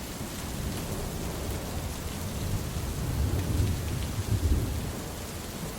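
Steady rain falling, with a low rumble of thunder that swells about halfway through and fades again.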